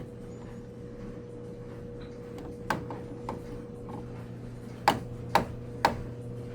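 A screwdriver clicks and taps against a fire alarm device that is being reset: a few sharp clicks, then three louder ones in quick succession about five seconds in, over a steady low hum.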